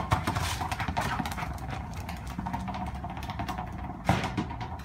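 A Rottweiler's claws clicking and scuffing on stone patio tiles as it nudges a rubber ball along, with a sharper knock about four seconds in.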